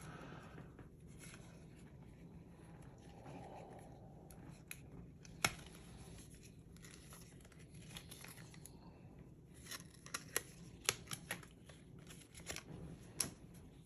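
Faint rustling and handling noise from a wristwatch and its packaging being handled, with a few sharp little clicks: one about five seconds in and several more near the end.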